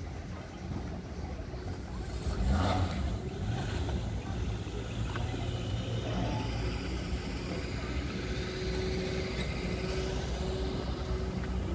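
A motor vehicle engine running, getting louder about two seconds in and then holding steady, with a low hum.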